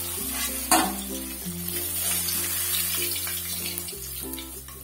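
Tilapia pieces sizzling in hot mustard oil in an aluminium kadai as they are lifted out with a metal spatula, with one sharp metal knock a little under a second in; the sizzle fades away toward the end. Background music with a steady bass line plays under it.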